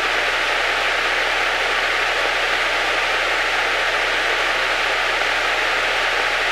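Steady, loud hiss of static on the aircraft's radio and intercom audio, with a thin steady tone running under it. This is the radio hissing the pilots are chasing, which they suspect may come from a jack.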